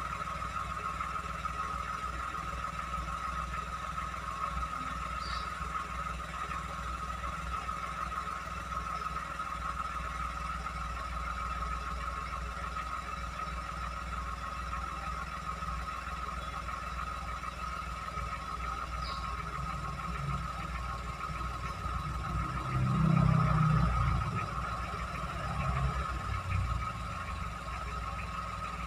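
Toyota Agya engine running steadily at idle, a low rumble with a steady higher whine over it. About two-thirds of the way through the low rumble swells briefly louder for a second or two, and again more softly a few seconds later.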